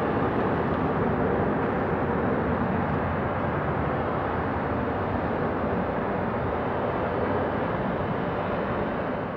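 Boeing 767-300 freighter's twin General Electric CF6 turbofans at takeoff thrust as it lifts off and climbs away: a steady, dense jet rumble that eases a little toward the end as it gains height.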